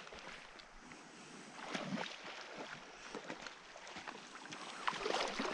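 A hooked coho salmon splashing and thrashing at the surface, in irregular short splashes over a steady water noise.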